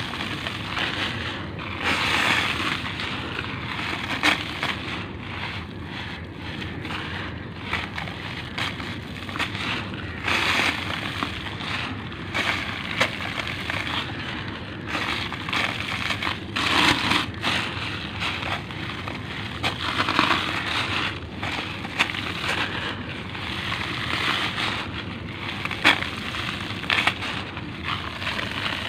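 A dry concrete cake of cement and sand being crumbled by hand, its grit and powder pouring onto a heap on a plastic sheet. It makes a continuous gritty crackle, with sharper crunches every second or two.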